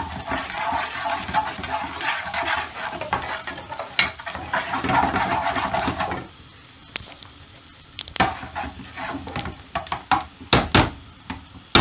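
Finely diced onions frying in oil in a pan and being stirred, softening as the added salt draws their moisture out. The stirring and sizzle are dense for about six seconds, then drop to a quieter sizzle with a few sharp knocks of the utensil on the pan, two close together near the end.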